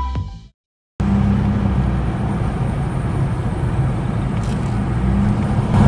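Background music fades out in the first half second, followed by a brief gap of silence. Then steady road and engine noise of a car driving, heard from inside the cabin.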